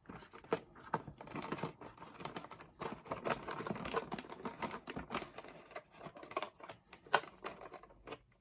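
Toy packaging being handled while a twist tie is untwisted from the figure: irregular light clicks, taps and crinkles of plastic, with one sharper click about seven seconds in.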